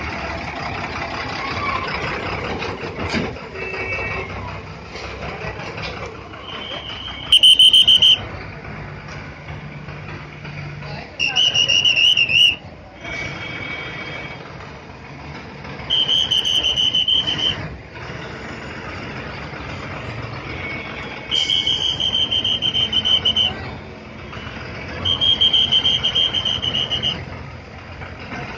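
State-transport bus engines running while the buses manoeuvre, broken by five long, high-pitched horn blasts, each a second or two, sounding every few seconds.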